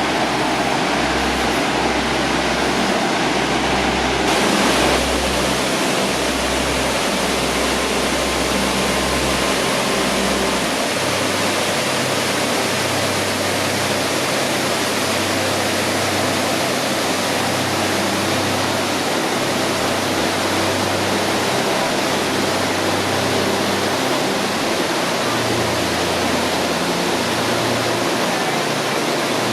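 Steady roar of a waterfall's rushing water, with low notes shifting in pitch underneath every second or so.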